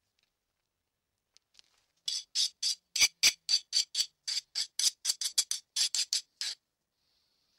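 Hand file rasping back and forth across a steel knife blade clamped in a vise. About four short strokes a second start some two seconds in and run for about four seconds.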